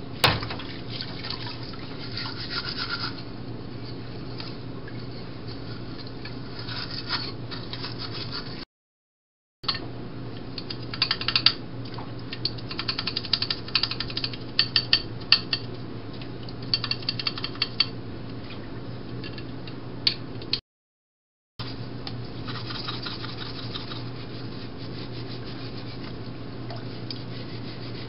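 Aluminium Bialetti moka pot parts being scrubbed in a sink of soapy water: rubbing and scraping on metal, with clusters of small clicks and clinks in the middle, over a steady low hum. The sound drops out completely twice, briefly.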